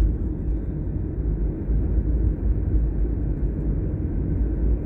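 Car driving along a town road, heard from inside the cabin: a steady low rumble of engine and tyre noise.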